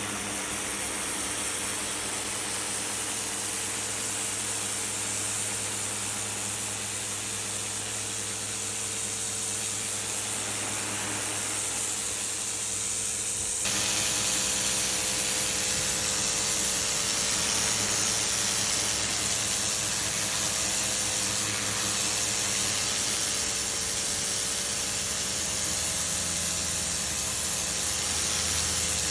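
Pressure washer running steadily: a motor hum under the hiss of the high-pressure water spray on concrete. The hum and hiss change abruptly about halfway through.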